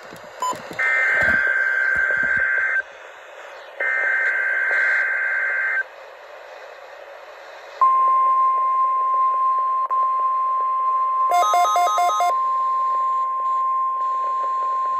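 NOAA Weather Radio Required Weekly Test: the last two SAME/EAS header data bursts, each a buzzy two-second burst with a second's gap between. Then, about eight seconds in, the steady 1050 Hz warning alarm tone starts and holds. A short run of rapid beeps overlaps the tone about eleven seconds in.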